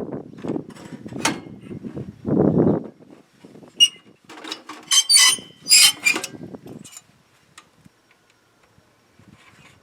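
Metal parts and tools being handled on a workbench: dull knocks and rustling, a single ringing metallic clink just before four seconds in, then a short run of bright metallic clinks and rattles.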